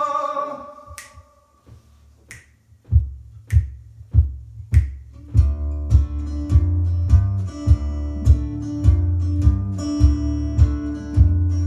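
Four finger snaps about a second apart counting in, then a guitar in drop D tuning starts playing, a low repeated bass note under a steady beat.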